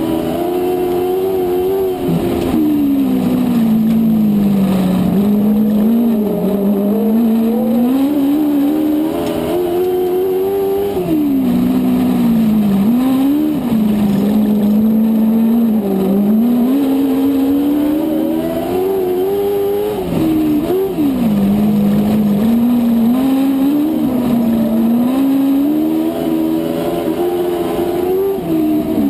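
A dwarf race car's motorcycle engine, heard from on board at racing speed. It climbs in pitch as the car accelerates down each straight, then drops sharply as the driver lifts for the turns, several times over.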